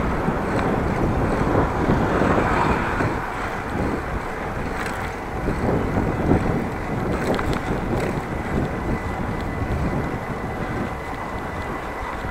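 Wind buffeting the microphone of a moving bicycle, mixed with road noise, with a few light clicks in the middle.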